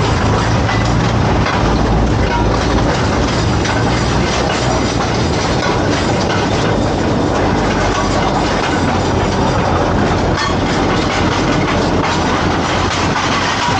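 A rail vehicle running along the track, its wheels clattering steadily on the rails, with frequent small clicks over a constant running noise.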